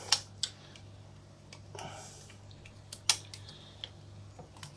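Light handling sounds of 35mm film in an open-backed Canon EF film SLR as the film leader is drawn across toward the take-up spool: two sharp clicks at the start, a soft rustle about two seconds in, and another sharp click about three seconds in.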